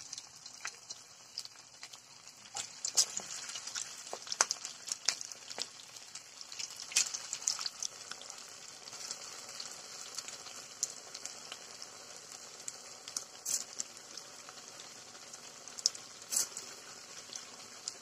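Semolina-and-potato fingers deep-frying in hot vegetable oil in a kadai: a steady sizzle with frequent sharp crackles and pops as the fingers are added one by one.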